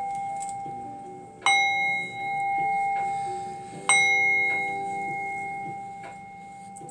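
Singing bowl struck once at a time, about a second and a half in and again about four seconds in. Each strike rings out in a steady, clear tone that slowly fades, and the ring of a strike just before is still dying away at the start.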